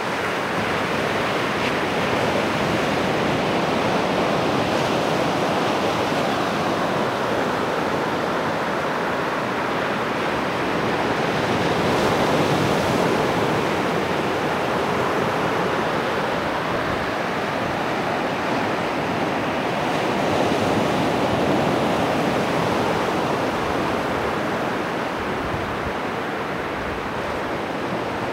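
Ocean surf breaking and washing up a sandy beach: a steady rush of small waves, swelling a little twice as larger waves break.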